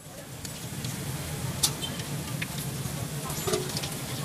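Street-food stall background: a steady low hum with a few scattered clicks and knocks, the sharpest about one and a half seconds in.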